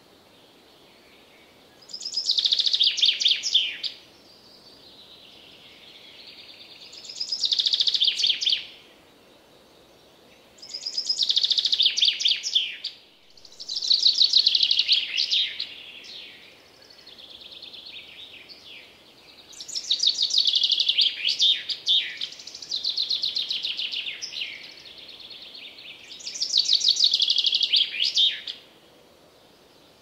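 Common chaffinch singing in a forest: about seven song phrases, each a rapid trill of about two seconds falling in pitch to a final flourish, with pauses of a few seconds between them. Fainter birdsong fills some of the gaps.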